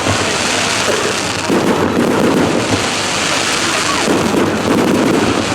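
Fireworks going off in a continuous dense crackle, surging louder twice.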